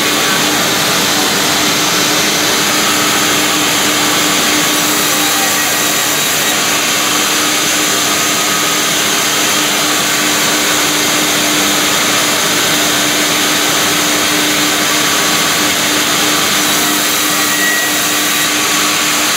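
Vertical log band saw (round-log resaw machine) running, a steady whirring hum with one constant tone throughout.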